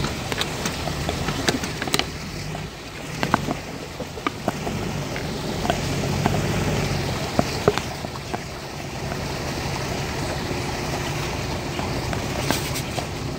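Toyota Land Cruiser 100's engine running at low revs as the truck crawls over rough ground, heard from inside the cabin, with frequent short knocks and rattles from the body and suspension over the rocks.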